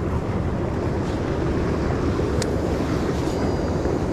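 Wind buffeting the microphone, a steady low rumble, with one sharp click about halfway through.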